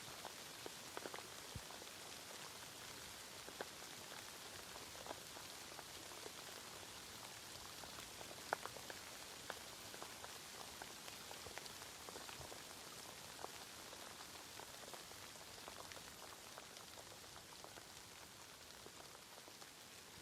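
Steady light rain: a soft, even hiss with many separate drops ticking close by, the sharpest about eight and a half seconds in.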